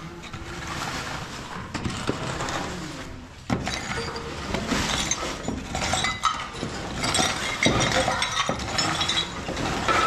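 Dense clinking and knocking of hard objects being handled, growing busier and louder about three and a half seconds in.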